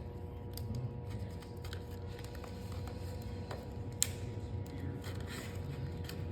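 Plastic packaging or a plastic part being handled and opened by hand: light rustling and small clicks, with one sharper click about four seconds in.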